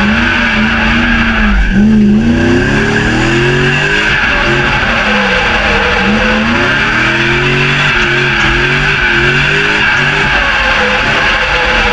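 BMW E36's swapped-in M60B40 4.0-litre V8 revving up and down again and again while the rear tyres squeal without let-up through a drift, heard from inside the cabin.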